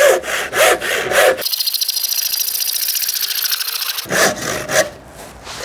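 Disposable handsaw cutting through a length of timber: back-and-forth rasping strokes, with a stretch of faster, finer, higher rasping from about a second and a half in, then a couple more strokes, quieter near the end.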